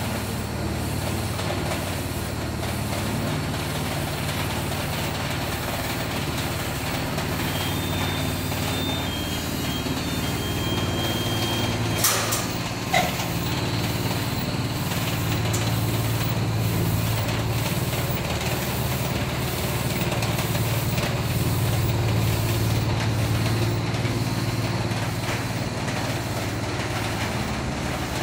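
DTF film printer and its powder-shaker and curing unit running, a steady low machine hum under fan noise. Two short clicks come about twelve and thirteen seconds in.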